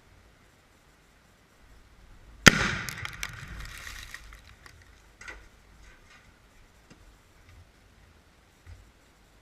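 One sharp bang about two and a half seconds in, from shooting at a Tannerite-packed microwave. It is followed by about a second and a half of crackling, rattling clicks that die away, then a few faint clicks.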